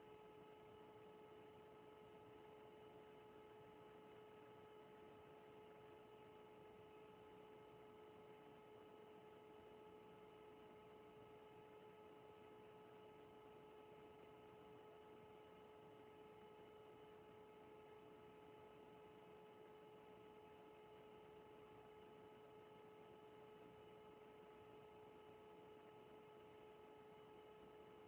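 Near silence with a faint, steady electrical hum: one unchanging tone with a few fainter higher tones above it.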